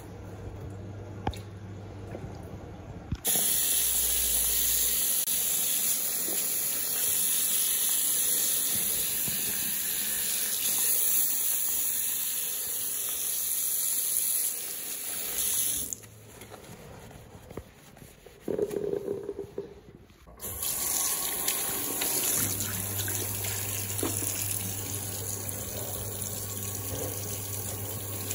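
Tap water running into a ceramic bathroom basin and splashing as the basin is scrubbed with a sponge under the flow. The water starts a few seconds in, stops briefly just past the middle, then runs again.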